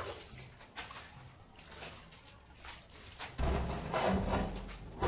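Scraping and knocking as a granite slab is handled and set against the wall over a wet mortar bed, louder from about three and a half seconds in.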